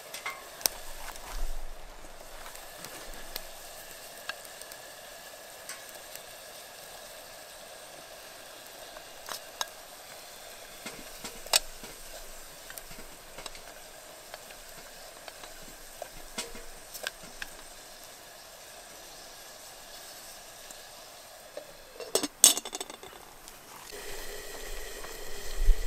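Steady sizzling hiss of a pot of vegetables cooking over a campfire, with occasional light clicks. A little before the end comes a short metallic clatter as the lid goes onto the pot, and the hiss grows louder after it.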